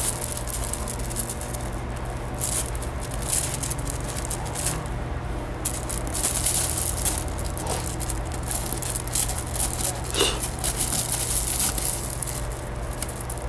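Gravel crunching and rattling under a puppy's scrabbling paws and a person's shifting feet during a tug-of-war game, with one brief high squeak about ten seconds in.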